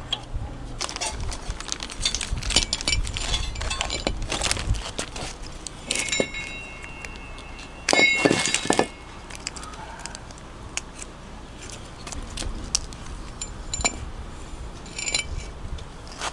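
Metal tools and parts clinking and clanking during hub assembly work on a truck: a run of sharp knocks and clinks, some ringing briefly, with a dense burst of rattling clanks about halfway through.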